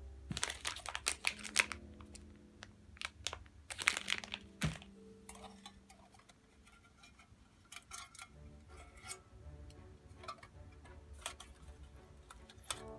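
Metal camping cookware clinking and clattering as pieces are handled and nested, with a burst of sharp clicks in the first two seconds, another around four seconds in, then lighter scattered clicks.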